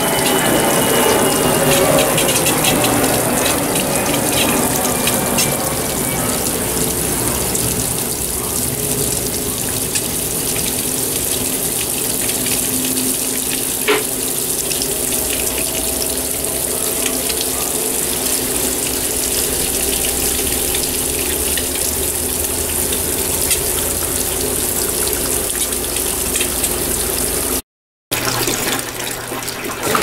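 Brastemp Ative! BWP11 top-loading washing machine filling its tub: water pours in over the clothes in a steady rush. A few faint tones fall slowly in pitch over the first seconds, and the sound breaks off briefly near the end.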